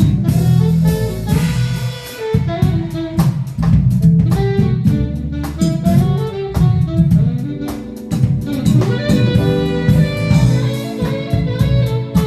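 Live band playing an instrumental passage: a saxophone melody over keyboards, electric bass and drum kit.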